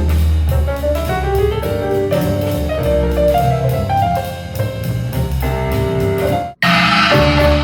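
Jazz with piano, double bass and drums played at full volume through a Harman Kardon Luna portable Bluetooth speaker. Near the end it cuts off for an instant and a different, brighter piece of music starts.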